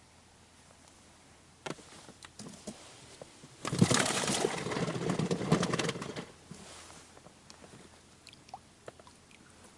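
Frogs croaking: a dense burst of low, rattling calls lasting about two and a half seconds in the middle, with a few sharp clicks before it.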